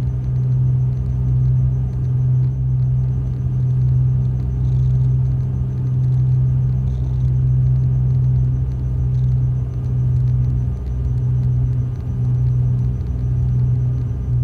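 Cessna 310's twin piston engines running steadily, heard from inside the cabin. A low drone swells and fades in a slow, regular pulse.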